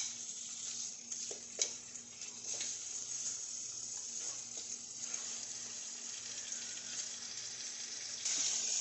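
Chunks of meat sizzling as they fry in butter and olive oil in a nonstick pan, with a few light clicks of tongs turning the pieces in the first few seconds. The sizzle grows louder shortly before the end.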